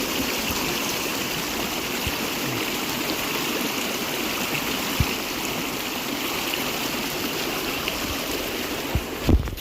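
Stream water rushing steadily, starting abruptly. A couple of knocks, with a louder thump near the end.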